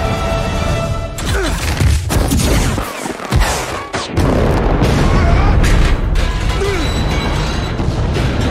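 Action-film soundtrack: dramatic music mixed with explosions, booms and metal impacts from a battle between armoured suits. The mix drops briefly about three seconds in, then comes back louder from about four seconds.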